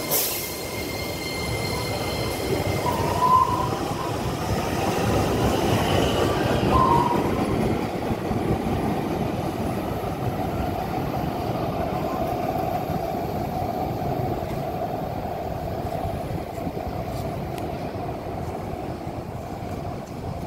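DART electric light rail train running along the platform with a steady rolling rumble. Two short, high wheel squeals come in the first several seconds, then a steady motor hum that slowly fades.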